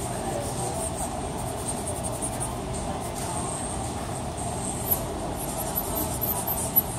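Steady rumbling background noise, with a few small clicks in the second half.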